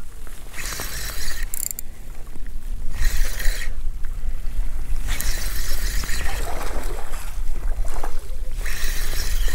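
Wind buffeting the microphone: a steady low rumble with gusts of rushing noise that come and go every couple of seconds.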